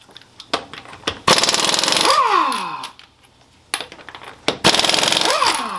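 Ingersoll Rand air impact wrench with a 7/8-inch socket spinning lug nuts off a wheel in two bursts, the second near the end; the pitch falls away at the close of each burst as the motor winds down. Short metallic clicks come between the bursts.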